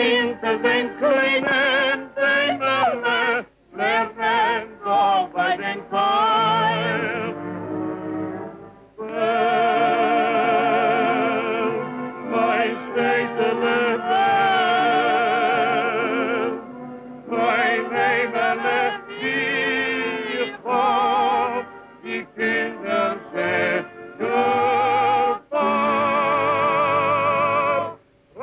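A man and a woman singing a Yiddish duet in an operatic style with strong vibrato, phrase after phrase with short breaths between. The old film soundtrack sounds thin and dull, with no top end.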